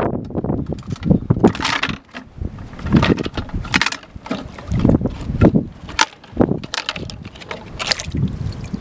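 Water sloshing and splashing in a plastic can fish trap, with irregular rustles and knocks of the plastic and rope as the trap is opened and a hand reaches into the water after a trapped fish. A steady low rumble of wind on the microphone runs underneath.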